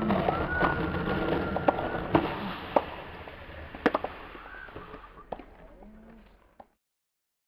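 Skateboard wheels rolling over pavement: a steady rolling noise broken by scattered sharp clicks. It fades away and then cuts to silence about six and a half seconds in.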